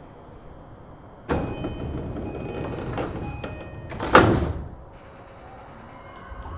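Sliding passenger doors of an E233 series 5000 electric train closing at a station stop. The doors start moving about a second in, with a few short chime-like tones over the noise, and shut with a loud thud about four seconds in.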